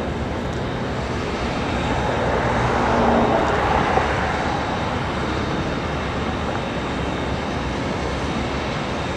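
Union Pacific Big Boy steam locomotive and its train rolling slowly by, a steady rumble that swells a little about three seconds in.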